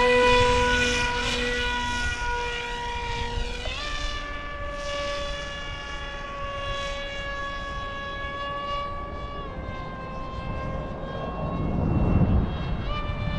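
Electric motor of a 3D-printed RC F-22 model plane running at high throttle in flight, a steady whine that steps up in pitch about four seconds in, drops slightly near ten seconds and rises again near the end as the throttle is changed. A low rumble, like wind on the microphone, swells shortly before the end.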